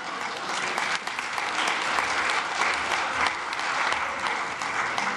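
Congregation applauding, many hands clapping steadily.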